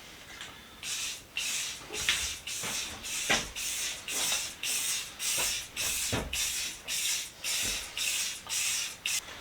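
Aerosol spray paint can sprayed in short hissing bursts, about two a second, laying a coat of paint on a metal box. A few sharp knocks come between the bursts.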